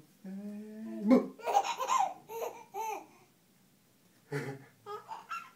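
A baby laughing in loud, choppy bursts during a peekaboo game. The laughter comes right after a held voice sound in the first second, and a second, shorter round of giggles comes near the end.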